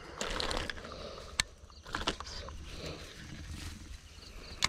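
Rustling and brushing through tall grass and weeds, broken by three sharp clicks: one about a second and a half in, one about two seconds in, and one near the end.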